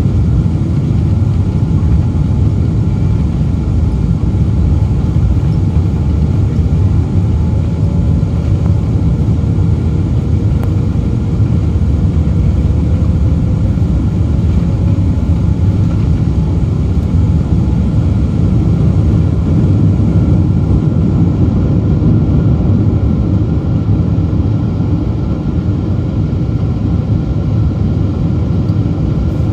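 Boeing 777-200's GE90 turbofan engines at takeoff power, heard from inside the cabin over the wing: a loud, steady, deep rumble through the takeoff roll, lift-off and initial climb.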